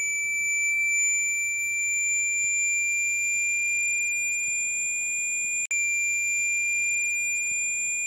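A steady, high-pitched electronic tone of the kind played through a phone speaker to shake water and dust out of it. It breaks off for an instant with a click about five and a half seconds in, then carries on unchanged.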